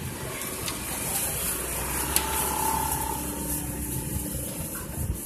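A motor vehicle engine running steadily, dropping away shortly before the end, with one sharp click about two seconds in.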